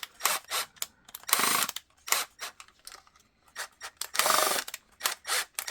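Screws being driven into the slotted posts of a kydex holster's retention hardware with a hand tool: quick ratcheting clicks broken by three short scraping bursts.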